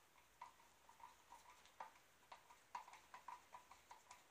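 Faint, irregular small clicks and squeaks, two or three a second, as a screwdriver turns a strap-pin screw out of the wooden guitar body.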